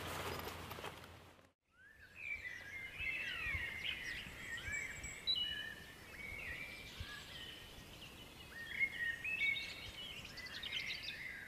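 Birds singing in woodland, many quick chirping notes that rise and fall. Before the birdsong, faint outdoor rustling fades out into a brief silence about a second and a half in.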